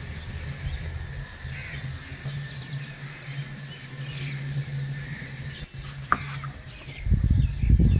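Steady low hum with faint high chirps over it. About six seconds in there is a short clink of glass as a glass bowl is handled, then near the end heavy low thumps of handling, the loudest sound.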